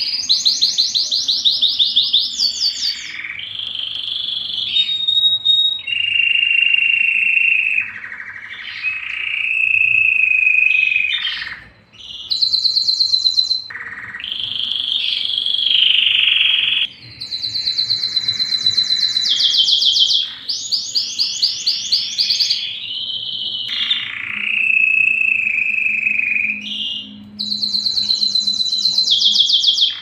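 Canary singing a long, nearly unbroken song of rapid rolling trills, each phrase repeating one note many times a second before switching to a new phrase every second or two, with a brief break about twelve seconds in.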